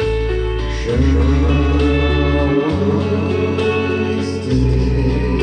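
A song played back from a Gradiente CD 5500 stereo cassette deck through a Pioneer SA-6300 amplifier and its speakers: steady music with a strong bass line and sustained notes.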